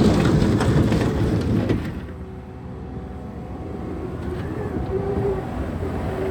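Takeuchi TL12V2 compact track loader's diesel engine running under load while the machine works. The noise drops about two seconds in, then builds again gradually, with a few knocks early on.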